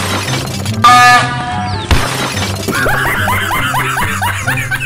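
A loud, short train horn blast, a chord of steady tones lasting about half a second, about a second in. A sharp crash follows about two seconds in, then a quick run of short rising squeaks over a steady music bed.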